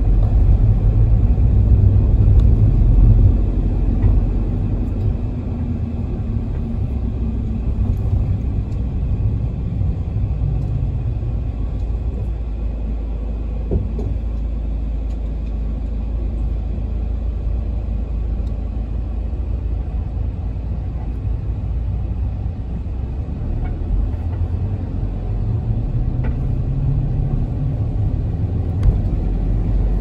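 Cabin ride noise of a Toyota HiAce minibus with its 2.8-litre diesel engine under way: a steady low rumble of engine and road. The engine note rises and falls a couple of times.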